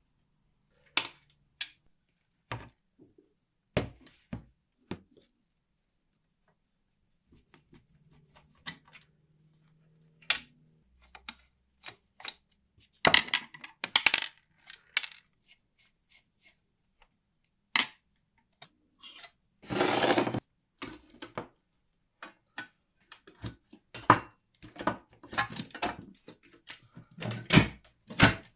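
Small metal parts and tools clinking and clattering on a work surface during hands-on work on an old typewriter, in scattered sharp clicks with two longer rattling scrapes, busier in the second half.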